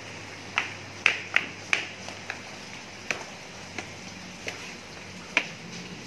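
Footsteps on a hard tile and stone floor, heard as about nine sharp, irregular clicks and slaps over a low hum of room tone. The loudest steps come a little after one second in.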